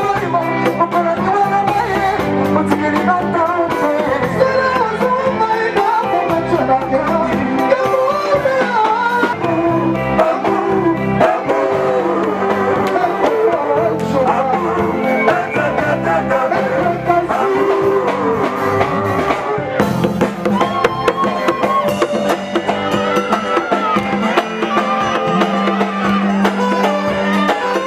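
A song with singing and drums.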